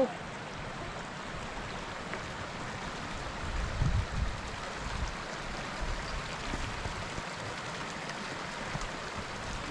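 Mountain stream rushing steadily over rocks, with a few low rumbles about four seconds in.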